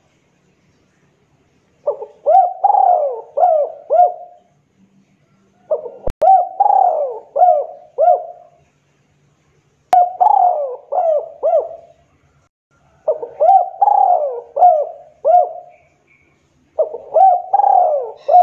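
Spotted dove (tekukur) cooing in repeated phrases of several rolling coos, one phrase about every four seconds: four full phrases, with a fifth starting near the end.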